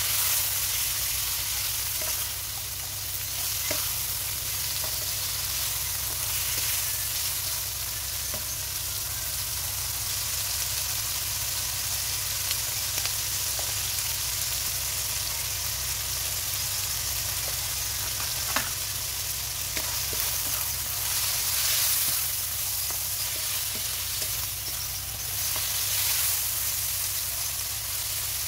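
Chicken and mixed vegetables sizzling in a hot wok as they are stir-fried with a spatula: a steady frying hiss with a few light taps and scrapes of the spatula against the pan.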